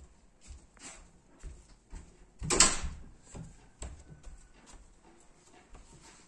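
Scattered light knocks and clicks, with one louder knock or clatter about two and a half seconds in.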